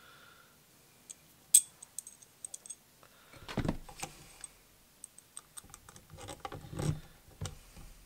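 Small hard parts clicking as a bit-holder clip is handled, then a Hilti cordless drill-driver running in short bursts, driving the screws that fasten the clip on.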